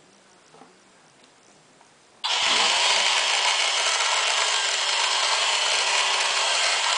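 Haynes build-your-own clear plastic model engine switched on about two seconds in: its electric drive spins up with a brief rising tone, then the model runs loud and steady.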